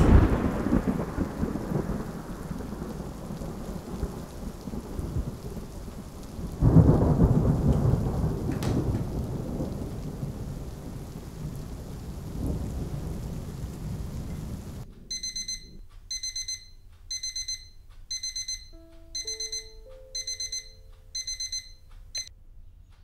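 Thunderstorm: heavy claps of thunder at the start and about seven seconds in, rumbling and fading, with rain. Near the end it cuts to a digital alarm clock beeping in short runs of high pips about once a second, which stop as it is switched off.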